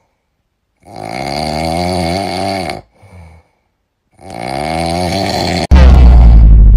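Snoring sound effect: two long snores, with a short faint breath between them. Near the end a sudden, much louder low blast cuts in.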